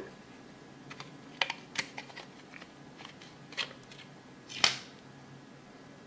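Scattered small clicks and taps of a hard plastic car door handle housing and a thin metal rod being handled and fitted together, with one louder knock a little past two-thirds through.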